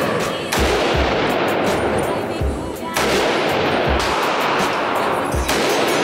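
Shots from a short-barrelled AR-style rifle at an indoor range, with music playing underneath.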